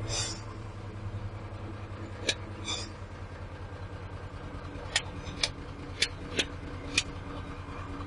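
Diesel engine of a Kato SR-250 25-tonne rough-terrain crane idling with a steady low pulsing rumble. About seven sharp knocks cut through it, most of them in the second half.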